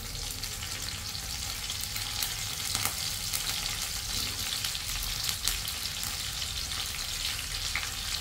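Canned sardines in oil frying in a wok of hot oil with browned garlic, a steady sizzle with fine crackling. A few light clicks come from a metal spoon scraping the tin and tapping the wok.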